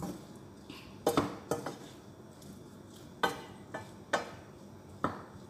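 Wooden spatula knocking against a stainless steel frying pan while stir-frying shrimp and vegetables: about five sharp clacks, roughly a second apart.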